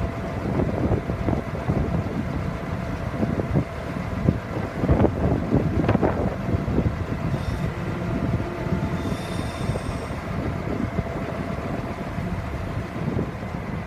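Wind buffeting the microphone in uneven gusts, with a faint steady hum underneath.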